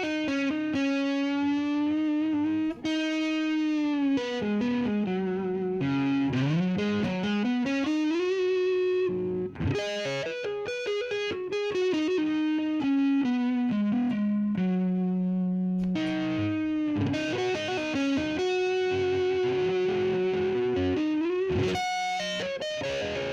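Electric guitar with distortion, riffing single sustained notes with smooth string bends and slides.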